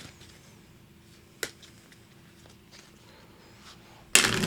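Tarot cards being handled: a couple of light taps and clicks, then near the end a sudden loud burst of card shuffling.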